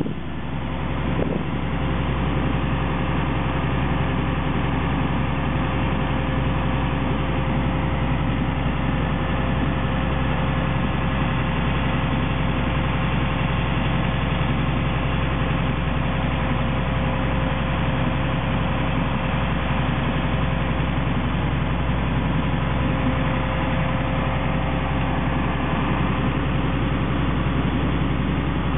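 A sailing gulet's engine running steadily under way, motoring the boat along. It is a low, even drone with a faint steady whine above it, growing slightly louder over the first couple of seconds, then holding level.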